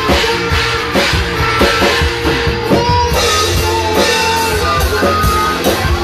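Rock music with a drum kit beating steadily under guitar melody lines.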